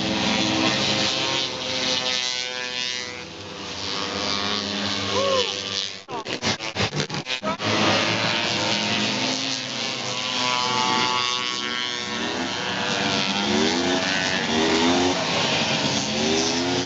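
Several single-cylinder racing snowmobiles running hard and passing, their engine pitch rising and falling as they go by and rev. About six seconds in, the sound stutters rapidly for a second or so.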